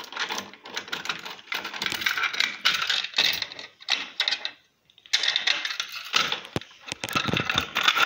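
Rapid, irregular clicking and clattering as hands handle a fire alarm pull station and the phone recording it, with a short pause a little before halfway.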